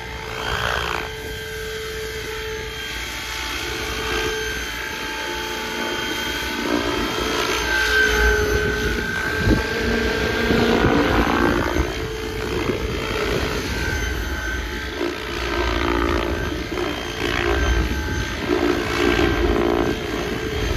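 Electric 800-size SAB Goblin RC helicopter with a three-blade tail rotor in flight: the whine of its rotors and motor rises and falls in pitch as it passes and manoeuvres.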